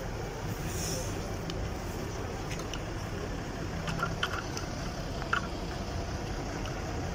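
Truck engine running slowly, a steady low hum. A few short sharp clicks come about four to five seconds in.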